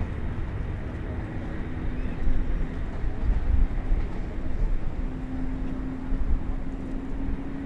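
Jet airliner engines heard as a steady, low rumble, with a faint hum that grows stronger and edges slightly up in pitch in the second half.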